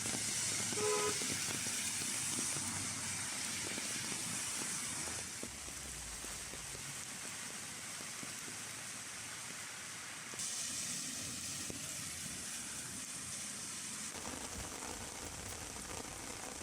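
Steady hiss of heavy rain, its level and tone changing abruptly three times, with a brief pitched beep about a second in.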